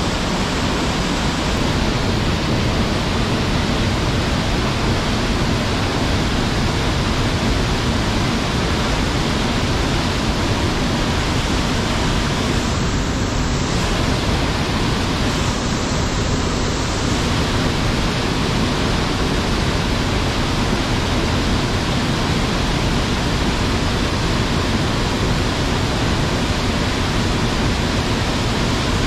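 Rushing water of a waterfall on a mountain stream, a steady, loud, unbroken rush.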